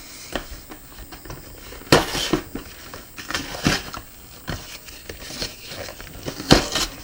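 A cardboard 30-can beer case being torn open at the top by hand: irregular scratching, crackling and tearing of cardboard, with sharper knocks about two seconds in and again near the end.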